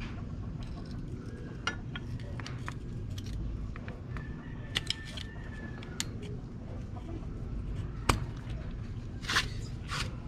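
Scattered metal clicks, taps and scrapes from hands and a tool working the motorcycle side stand's return spring and bracket during fitting, with one sharp click about eight seconds in and a short burst of scraping near the end, over a steady low background rumble.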